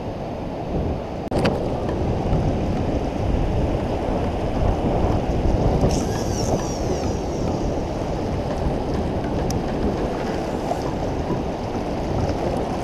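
Strong river current rushing around a wading angler, with wind buffeting the microphone: a steady, dense rushing noise. A sharp click comes just over a second in, and a brief high hiss about halfway through.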